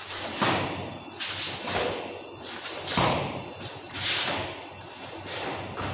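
Karate gi snapping and swishing with each fast strike and block of the Heian Nidan kata, along with bare feet thudding and sliding on foam mats: a string of about seven sharp swishes and dull thumps.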